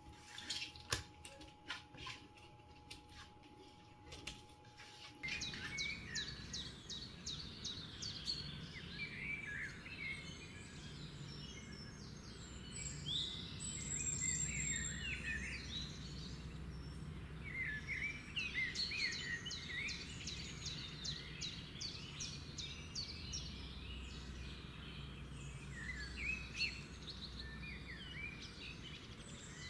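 Birds chirping in many short, quick calls over a low steady rumble, starting about five seconds in. Before that come a few seconds of clicks and handling noise with a faint steady hum.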